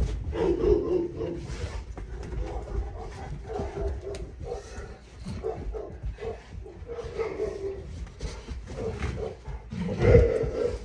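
Several large dogs moving and sniffing around a couch, making short low vocal sounds among the soft thumps of their paws and bodies, with a louder call about ten seconds in.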